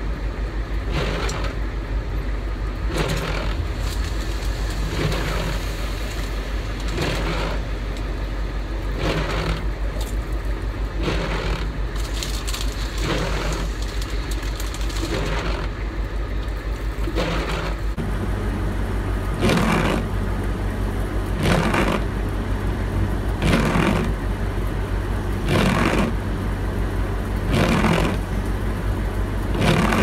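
Vehicle engine idling, heard from inside the cab, with the windshield wipers sweeping the snow-wet glass about once every two seconds. About two-thirds of the way through, a deeper hum comes in and the wiper strokes get louder.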